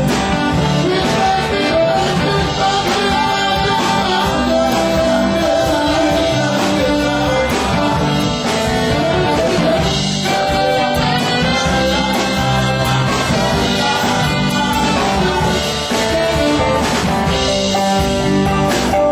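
Live band playing through amplifiers: electric guitars and keyboard, with a voice singing over them.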